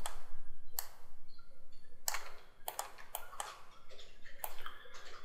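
Computer mouse and keyboard clicks: about ten short, sharp clicks at irregular intervals.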